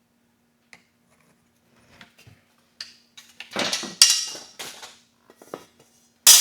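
Metal tools and hardware being handled: a few faint clicks, then from about halfway a run of sharp clinks and rattles, the loudest near the end.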